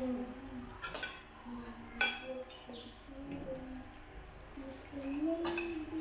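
Spoons and cutlery clinking against dishes and bowls during a meal, a few separate sharp clinks, the clearest about 1 and 2 seconds in and again near the end.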